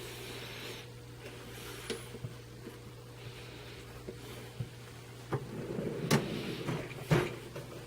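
Drawers of a Harbor Freight four-drawer steel tool cart sliding open and shut on their slides, with several sharp metal clunks, the two loudest about six and seven seconds in.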